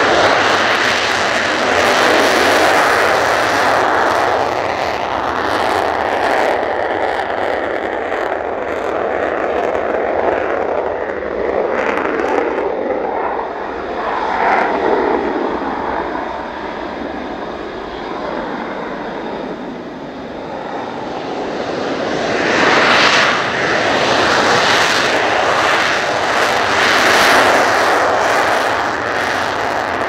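Jet engines of two F-35A Lightning II fighters, each a single Pratt & Whitney F135 turbofan, running on the runway before takeoff. The jet noise is loud and rushing throughout, easing somewhat in the middle and swelling again toward the end.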